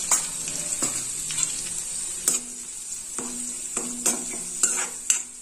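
Ghee sizzling steadily in a kadhai as a tadka of spices and chilli powder fries, with a spatula stirring and scraping through it and knocking sharply against the pan about six times.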